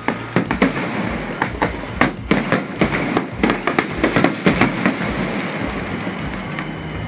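Aerial fireworks bursting overhead: a rapid run of sharp bangs and crackles, densest in the middle and thinning out near the end.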